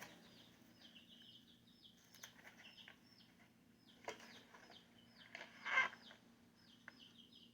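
A small bird chirping faintly, short high notes repeated about twice a second over a steady low hum. There is a click about four seconds in and a brief rustle near six seconds, the loudest moment.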